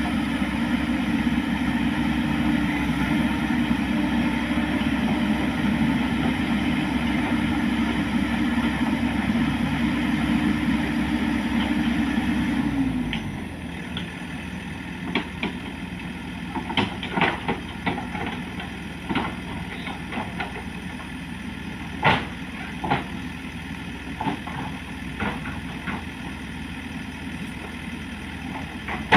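Heavy engine running steadily at raised revs, then throttling down to a lower, quieter idle about halfway through. Scattered sharp knocks and clanks follow over the idle.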